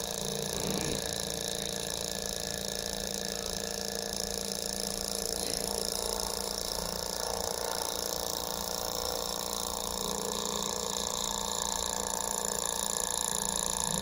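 Miniature vertical Stirling engine model running steadily, its small flywheel and linkage turning with a light, even mechanical sound.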